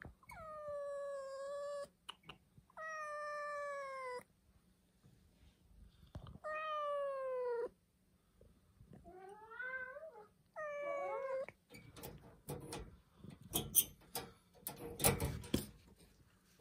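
Brown tabby stray cat meowing: five long, drawn-out meows, the first three sliding slightly down in pitch and the last two wavering. They are followed by a few seconds of sharp clicks and knocks, loudest near the end.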